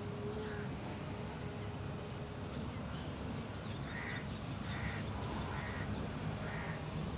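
A bird calling four times, short calls spaced a little under a second apart starting about halfway through, over a steady low background noise.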